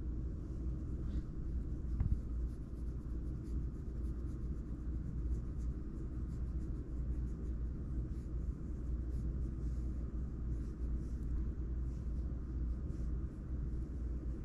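Scottish Fold cat purring steadily while being scratched under the chin, with the scratchy rustle of fingers rubbing its fur and a brief click about two seconds in.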